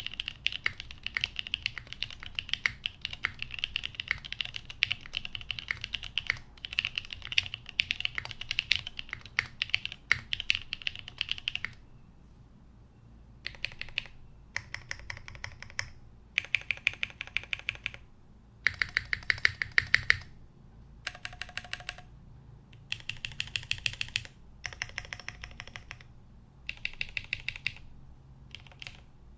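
Typing on a plateless Jubi mechanical keyboard with lubed Cherry MX Hyperglide-housing, cream-stem switches and OG Cherry G81 keycaps. Fast continuous keystrokes for about twelve seconds, then short runs of quick key presses separated by brief pauses.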